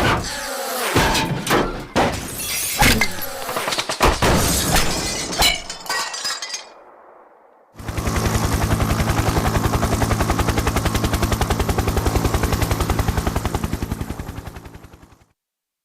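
Cinematic Dolby Atmos demo soundtrack: a rapid run of crashes, shattering and gunshot-like impacts for about six seconds, then, after a brief lull, a steady fast-pulsing low drone that fades out near the end.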